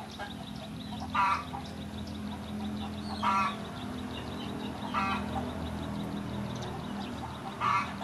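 Domestic fowl calling in the background, four short calls about two seconds apart, over a low steady hum.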